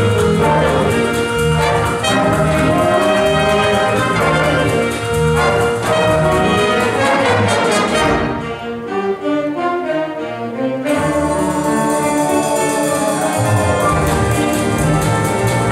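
Large instrumental ensemble playing, with brass to the fore. About eight seconds in, the full sound thins to a quieter, lower passage for a few seconds, then the full ensemble comes back in.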